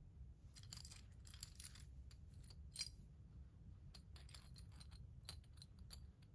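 Faint, scattered light clinks of a metal key ring and its dangling charms being handled and arranged, with one slightly sharper clink about three seconds in.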